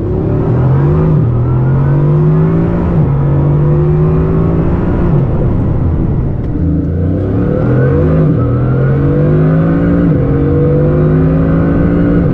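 High-performance car accelerating hard at speed. The pitch climbs and then drops back several times, and road and tyre noise run steadily underneath.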